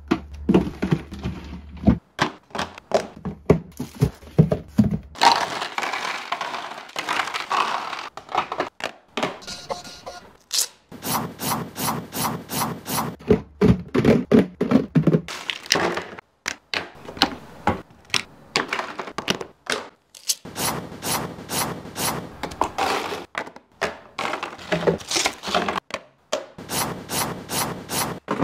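Food packages and containers being handled and packed away: a quick, irregular run of clicks, knocks and crackling, with stretches of rustling.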